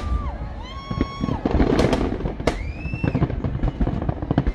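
A fireworks display: a dense run of bangs and crackling bursts, with two long whistles sounding over them, the second rising and then falling.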